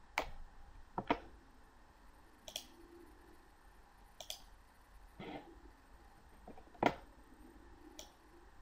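Computer mouse clicking: about eight short, sharp clicks spaced irregularly, one to two seconds apart, over faint room hiss.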